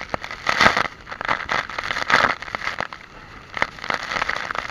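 Water splashing in irregular bursts around people bathing in a waterfall pool.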